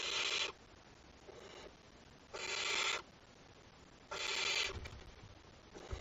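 Barn owl nestlings giving their rasping, hissing begging calls (the 'snoring' of young barn owls): three loud half-second hisses about two seconds apart, with fainter ones between. A few soft low thumps come near the end.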